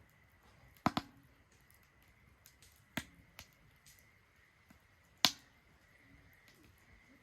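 Wood fire burning in a Solo Stove Ranger fire pit, crackling with a few sharp pops: a double pop about a second in, another around three seconds, and the loudest a little past five seconds.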